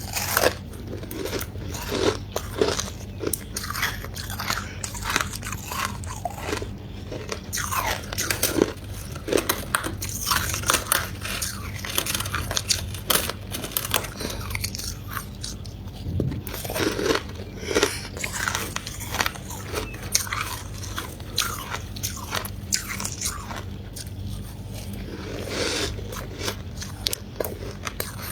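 Close-up biting and chewing of ice and frost: many irregular crisp cracks and crunches, with a few short lulls between bites.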